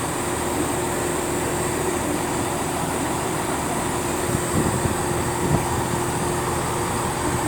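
Class 166 diesel multiple unit idling at the platform: a steady engine hum with a constant droning tone.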